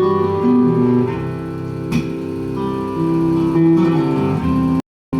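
Acoustic guitar accompaniment playing an instrumental passage of the song, with several notes ringing on together and changing about once a second. The sound cuts out completely for a moment near the end.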